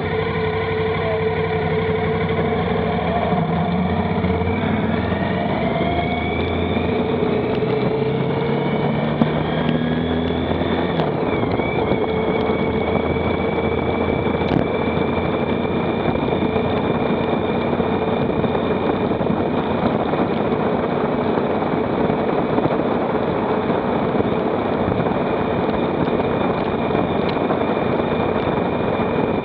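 Motorcycle engine pulling up through the gears, its pitch climbing twice in the first ten seconds or so, then held at a steady cruise with heavy wind rush on the microphone.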